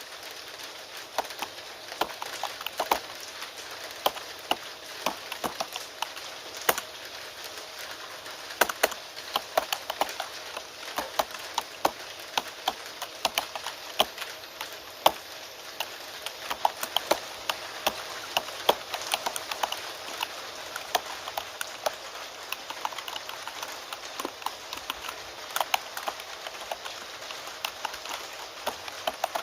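Computer keyboard typing, a quick irregular run of key clicks, over a steady hiss of falling rain.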